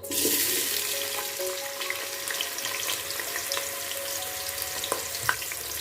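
Chopped onion tipped into hot oil in a pot and sizzling: a sudden loud hiss as it goes in, settling into a steady frying crackle as the onion starts to cook.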